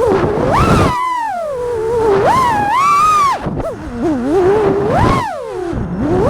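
A 5-inch FPV quadcopter's brushless motors and props whining, the pitch swooping up and down sharply as the throttle changes through freestyle manoeuvres. There is a brief sharp dip about a second in.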